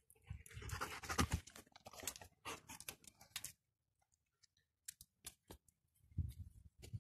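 German Shepherd puppy right at the microphone, snuffling and mouthing at it with a crackly rustle of clicks for about three and a half seconds. Then come scattered small clicks and a brief low thudding near the end.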